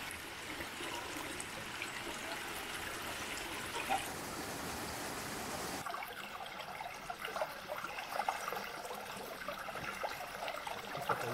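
Shallow forest stream trickling and splashing over rocks. The sound shifts about six seconds in, with a few light knocks after that.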